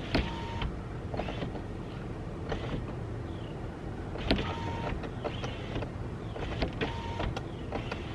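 Car power window motor running with a steady hum as the rear door glass is raised against a plastic lattice vent guard, with a few sharp clicks. A short electronic beep sounds three times.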